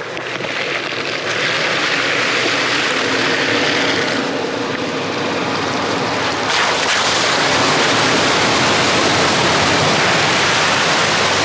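Toyota Land Cruiser Prado 120 ploughing through a flooded bog hole: its engine running under steady load beneath a continuous rush of sloshing, spraying water thrown up around the wheels.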